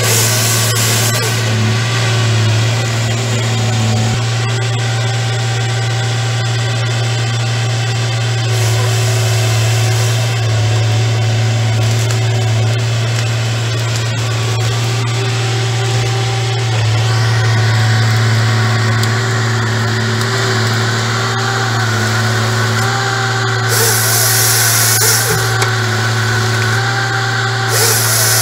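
Diesel engine and hydraulics of a Fabtek FT-133 tracked feller-processor running steadily under load, while the processing head's chain saw cuts through pine logs in four short bursts: at the start, around nine seconds in, and twice near the end.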